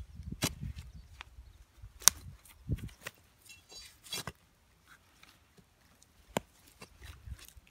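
Steel digging bar jabbed down into soil and roots around a Hollywood juniper stump: four sharp knocks about two seconds apart, the second the loudest, with dull thuds and scraping of earth between them, as the bar strikes and cuts through stubborn roots.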